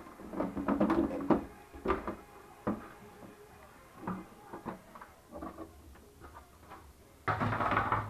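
Black plastic side panel of a Jura E8 coffee machine being prised and pulled off its frame: a string of sharp plastic clicks and knocks as its clips let go, with a louder scraping noise near the end.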